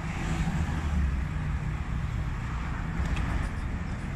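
Steady low rumble of street traffic, swelling briefly about a second in.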